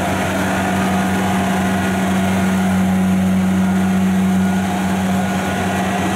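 Kubota rice combine harvester's engine running steadily under load as the tracked machine climbs a steep bank out of a flooded paddy, a constant deep hum that grows slightly louder partway through.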